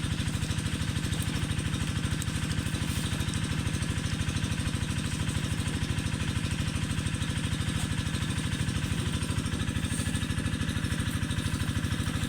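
A small engine running steadily at a fast, even beat, without any change in speed.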